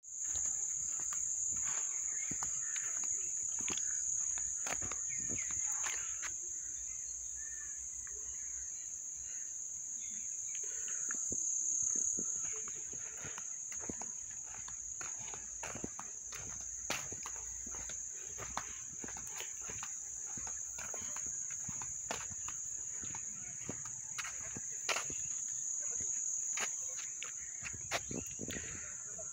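Steady, high-pitched chorus of insects chirring in tall grass, unbroken throughout, with scattered faint clicks and ticks over it.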